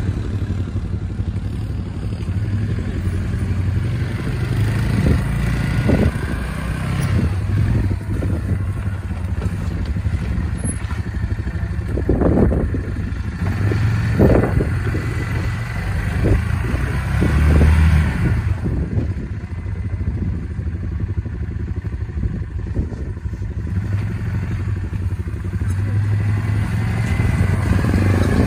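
Yamaha quad bike engine running as the ATV picks its way over rocky ground, the throttle swelling and easing. A few knocks of stones under the wheels come about halfway through.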